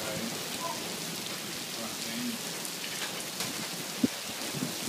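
Steady monsoon rain falling, a continuous even hiss, with one sharp tap about four seconds in.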